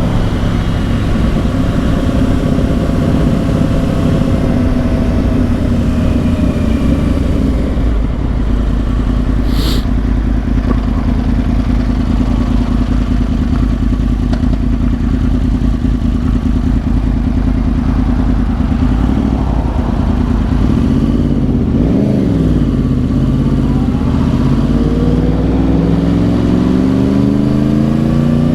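2010 Yamaha R1's crossplane inline-four running through dual Yoshimura exhausts while riding. The engine note eases off over the first few seconds and then holds steady. It dips briefly about two-thirds of the way in, then rises steadily as the bike accelerates near the end.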